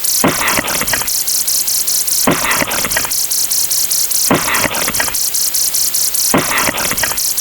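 Looping sound effects: a fast, even clicking, about eight or nine clicks a second, with a louder burst of about half a second repeating roughly every two seconds.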